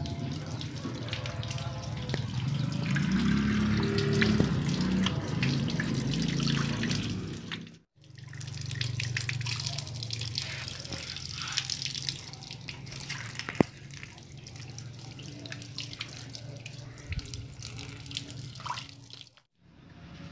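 Water running from an outdoor tap and splashing as someone washes hands and face under it for ablution. The sound drops out abruptly twice, about eight seconds in and near the end, where the footage is cut.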